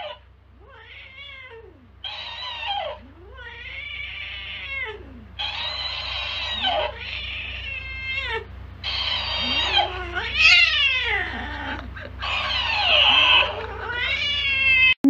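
Tabby cat yowling at a plush hamster toy in a long run of about nine rising-and-falling calls, each about a second long, that grow louder toward the end: the cat is getting angrier.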